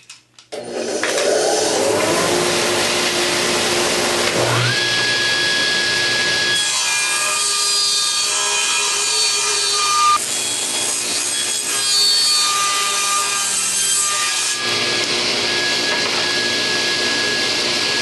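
Table saw switched on, its motor rising in pitch as it comes up to speed. About six and a half seconds in, the blade starts ripping a board lengthwise and cuts for about eight seconds, then runs free again.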